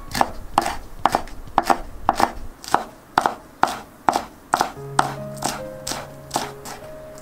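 Chef's knife slicing green onions on a wooden cutting board: even, repeated chops about two a second.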